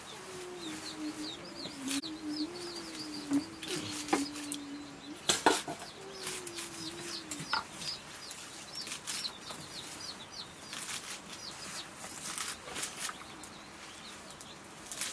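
A large curved knife slicing through bunches of leafy greens, giving a run of short crisp cuts and clicks, one sharper knock about five seconds in. Small birds chirp in quick series behind it, and a low wavering hum comes and goes in the first half.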